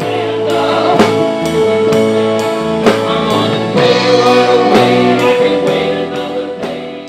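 Music: held chords over a steady beat of about two strokes a second, fading out near the end.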